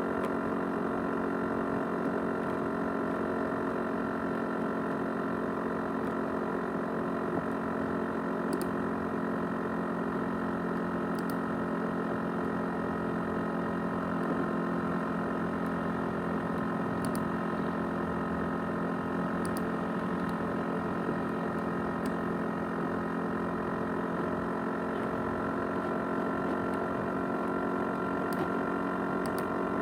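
ASUS X543UA laptop with a 500 GB USB hard drive running, giving a steady whirring drone full of tones, the 'jet engine' sound. Faint short clicks come every few seconds.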